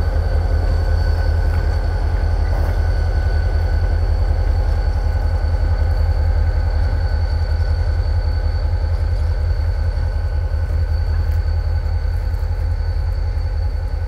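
Diesel-electric freight locomotive rolling slowly away along the track, its engine running with a steady low rumble and thin steady high tones over it, growing slightly fainter near the end.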